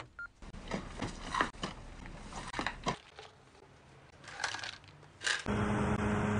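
Small clicks and rattles of pills and medicine packaging being handled. About five and a half seconds in, a loud steady mechanical hum starts.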